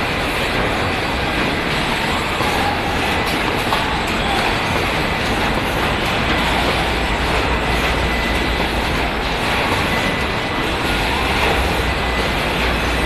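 Steady, continuous machinery din on a car-body assembly line, with welding and robots at work.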